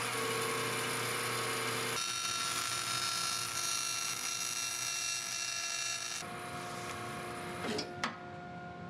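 Bandsaw running with a steady mechanical hum. From about two seconds in until about six seconds, the blade cuts through a thin plywood panel along a marked line, adding a higher hiss. The cut ends there and the saw runs on, with a sharp click near the end.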